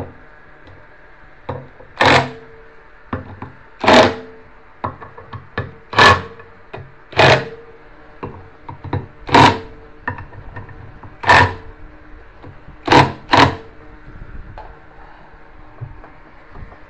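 Hard knocks, about eight of them one to two seconds apart with the last two close together, each with a short ring: a tool striking parts of a washing machine under repair.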